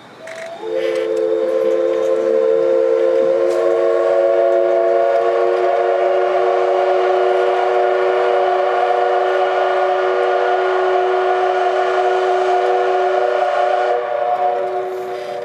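D51 steam locomotive's whistle sounding one long blast of about thirteen seconds: a chord of several steady tones that fills out a few seconds in and dies away near the end.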